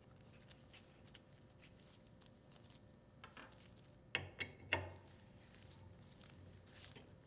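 Quiet room tone with light clicks of metal parts being handled while a pressure pilot's breather plugs are removed: three short clicks close together a little after four seconds in, with fainter ticks around them.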